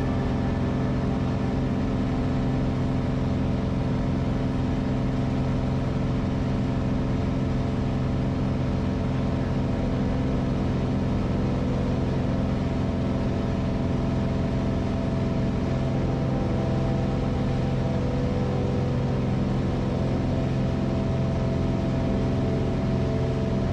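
Engine and spinning propeller of a single-engine light airplane in flight, a steady, unchanging drone heard inside the cockpit.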